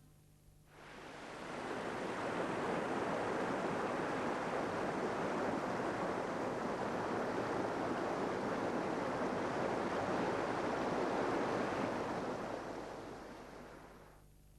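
Steady rush of sea surf, fading in over the first couple of seconds and fading out near the end.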